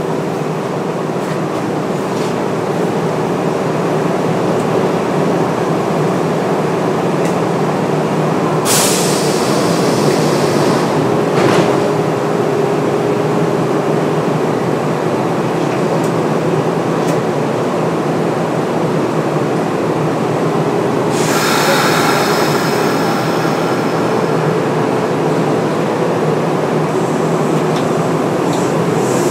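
Kintetsu 9820 series electric multiple unit running: steady wheel-and-rail running noise, with a spell of hiss about 9 seconds in and another, with some thin high tones, about 21 seconds in.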